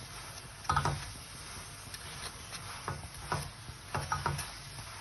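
Buttered saag paratha sizzling steadily on a hot pan as it crisps, with a few short knocks about a second in and again in the second half.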